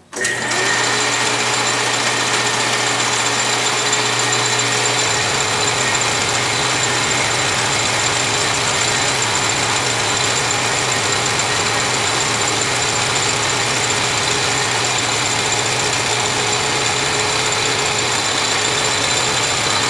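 South Bend 10-inch Heavy lathe running under power, a steady mechanical whir of its motor and gear train with a thin high whine on top.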